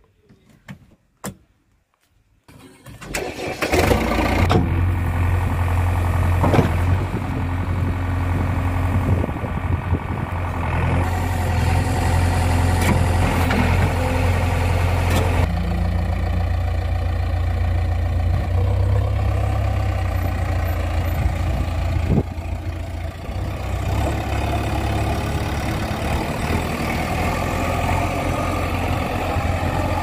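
JCB 3DX backhoe loader's diesel engine started on the key: a few clicks, then it cranks and catches about four seconds in and runs steadily at idle. Its note shifts a little about halfway through.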